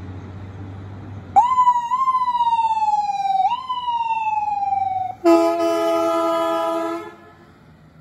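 Ambulance passing with its siren sounding, a single tone sliding slowly down in pitch and jumping back up twice, then a horn blast of just under two seconds.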